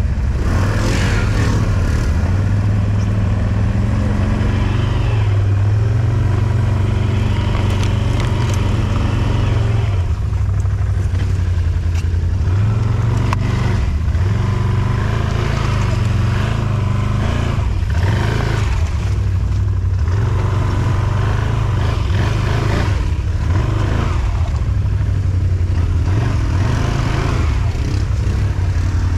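ATV engine running while being ridden through rough swampy ground, its pitch shifting with the throttle, with occasional knocks.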